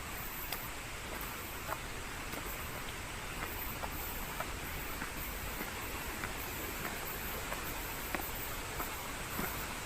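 Footsteps on stone stairs: scattered light steps, irregularly spaced, over a steady rushing hiss of outdoor noise.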